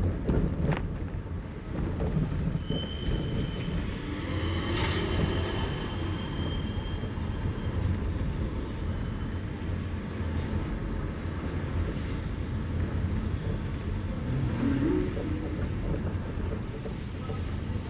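Car cabin noise while driving slowly through town traffic: a steady low rumble of engine and tyres on the road.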